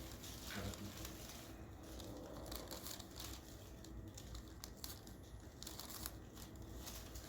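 Soft, irregular rustling and crinkling from handling a patient on a chiropractic treatment table during a neck stretch, with the shoulder pressed down and the head turned.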